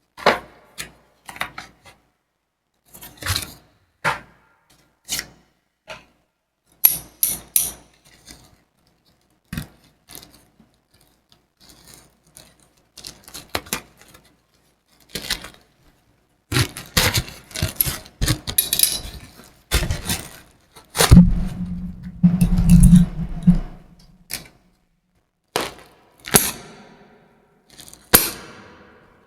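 SSD packaging being handled and opened by hand: scattered clicks, taps and scrapes of cardboard and plastic, busier in the second half, with a louder, lower rubbing stretch about two-thirds of the way through.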